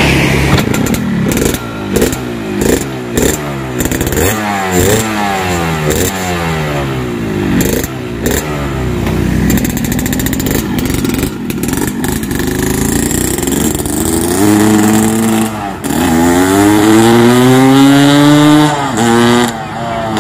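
Yamaha RX-King's two-stroke single-cylinder engine revved through a hollowed-out exhaust muffler, gutted to give a crisp, growling note. The throttle is blipped quickly over and over for the first several seconds, the engine settles to a steadier run, then near the end two longer revs rise and fall.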